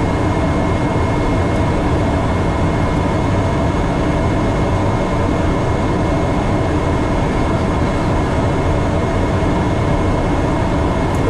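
Steady cockpit noise of an airliner on approach: a constant rush of airflow and engine hum, with a few faint steady tones running through it.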